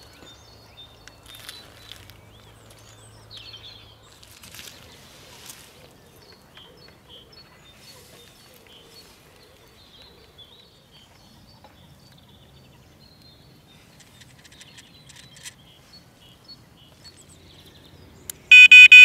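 Electronic bite alarm giving a short burst of loud, rapid beeps near the end, set off by hand as the rod is set on it. Before it, faint birdsong and small handling clicks.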